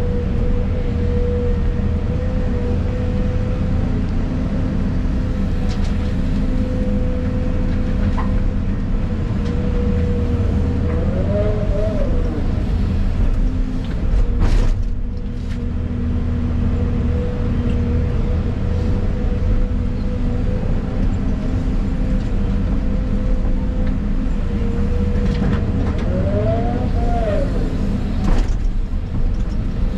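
Volvo 250 excavator's diesel engine and hydraulics running, heard from inside the cab: a steady low hum with a whine over it that briefly rises and falls in pitch twice as the machine works. A few sharp knocks come about halfway through and near the end.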